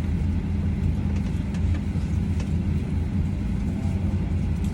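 Steady low hum inside a parked airliner's cabin, with a few faint clicks.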